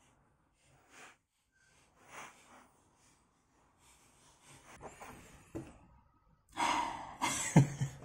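Small scrapes and clicks of a tool prying a Motorola 68000 CPU chip up out of its socket. Near the end comes a heavy breath with rustling handling noise, the loudest part, with a sharp click in it.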